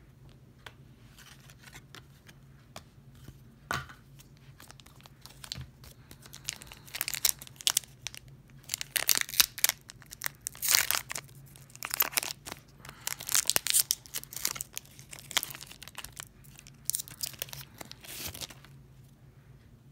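Foil trading-card pack wrapper being torn open and crinkled by hand: a few light handling clicks, then from about six seconds in a long run of sharp crackling tears and rustles that stops shortly before the end.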